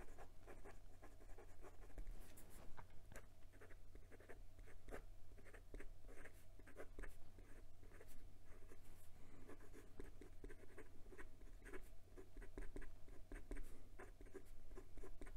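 A fountain pen's medium steel architect nib writing on Clairefontaine 90 gsm paper: faint, quick strokes and taps of the nib, several a second, as numbers and letters are written. The nib is nicely smooth with a good deal of feedback.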